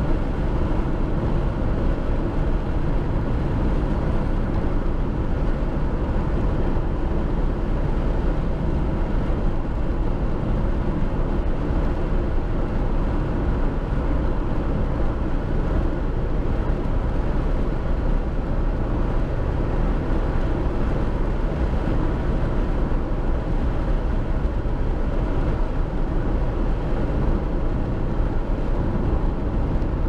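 A car driving along a highway: a steady low rumble of engine and tyres on the road.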